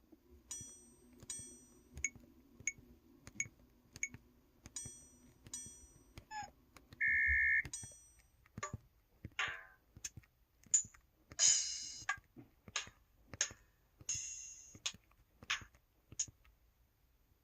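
EV-W350 button sounds in its Drum Set 2 setting, played one after another at about one and a half presses a second. They are short drum-like hits and clicks, with cymbal-like splashes about 11 and 14 seconds in. A short steady beep about 7 seconds in is the loudest sound.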